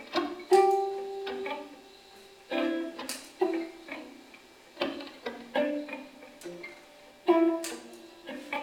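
Electric guitars playing sparse, sharply plucked single notes and short chords, about a dozen in an irregular, scattered pattern, each ringing briefly and then fading.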